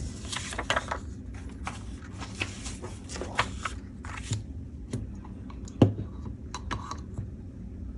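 Paper and craft tools handled on a tabletop: irregular paper rustles, light scrapes and small taps, with one louder knock a little before six seconds in.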